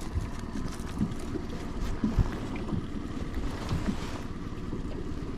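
Wind rumbling on the microphone aboard a small fishing boat, with a few soft knocks, the clearest about two seconds in.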